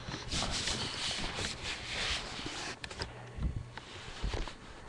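Rustling and bumping from a webcam being handled and swung around, then a few light knocks near the end as things settle on a desk.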